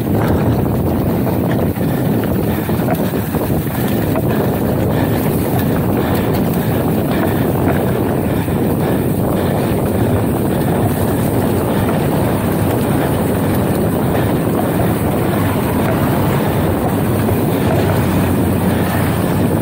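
Wind rushing over the camera microphone of a mountain bike going downhill, mixed with the tyres rolling over sandy dirt trail. A loud, steady deep rush with faint scattered ticks and no letup.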